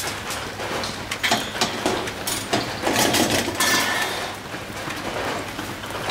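A stainless steel bar grill grate being set down and shifted over a charcoal grill, giving a series of metal clinks and clatters.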